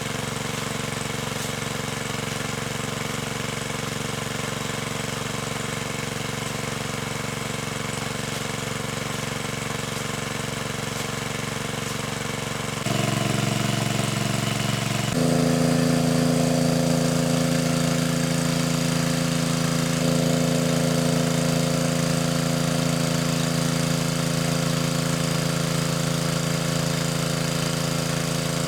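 A small engine running steadily. Its pitch and tone change suddenly about halfway through and again a couple of seconds later, and it grows a little louder.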